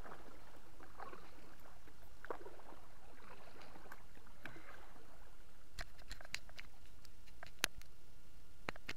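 Kayak paddle strokes on calm water: the blade dips and swishes through the water about once a second for the first five seconds. Then the paddling stops and a string of sharp clicks and light knocks follows, the loudest near the end.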